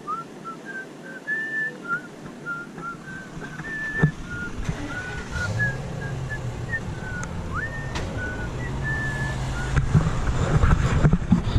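A person whistling a tune, short clear notes hopping up and down in pitch with one rising slide past halfway. A low engine hum comes in underneath about halfway through.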